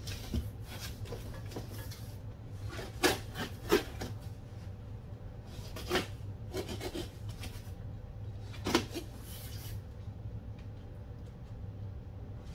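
Large cardboard box being handled: cardboard rubbing and scraping, with a few sharp knocks about 3, 4, 6 and 9 seconds in, over a low steady hum.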